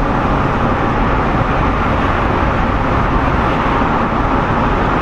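Steady road noise inside a moving car: tyre and engine noise with no distinct events.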